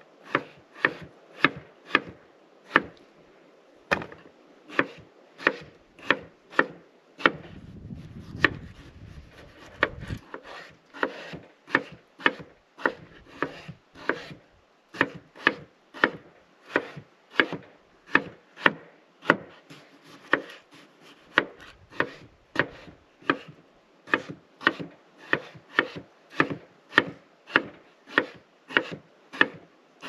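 Chef's knife dicing potatoes on a wooden cutting board, the blade knocking the board in a steady run of about two chops a second.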